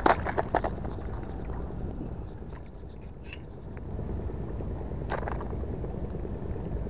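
Steady low background rumble, with a few sharp knocks near the start and a short rustling burst about five seconds in.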